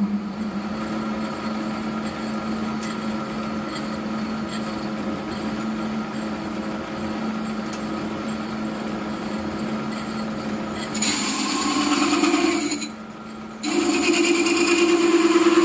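Warco WM250V lathe running with a 54 mm hole saw in the tailstock drill chuck cutting into a workpiece on the faceplate: a steady hum with the whir of the cut. About eleven seconds in, the cutting turns louder and harsher, breaks off for under a second, then carries on.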